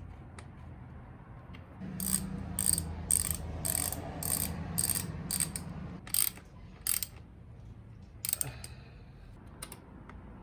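Ratcheting clicks in a quick run of about a dozen short, even strokes, then a few single clicks spaced out near the end, typical of a hand tool being worked on motorcycle fasteners.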